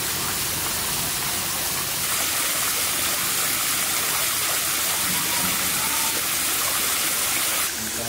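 Steady hiss of spraying water, a little brighter about two seconds in and dropping in level near the end.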